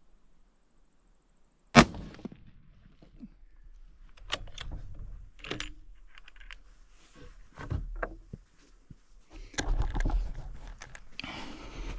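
A single rifle shot from a .257 Weatherby Magnum Weatherby Vanguard, a sharp crack with a brief ringing tail, about two seconds in. It is followed by several smaller clicks and knocks and then rustling handling noise near the end.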